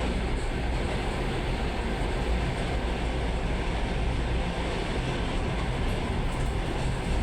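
Suburban electric train running along the track, a steady low rumble of wheels on rails heard from inside the carriage.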